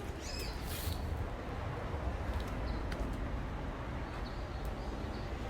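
Small birds chirping a few times, most clearly near the start, over a steady low rumble.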